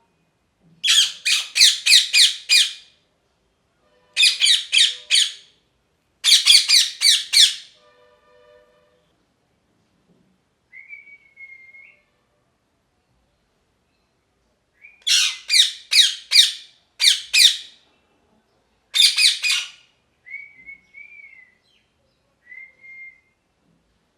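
Ringneck parakeet screeching in loud bouts of rapid, harsh repeated calls, with a few short, quieter whistled notes between the bouts.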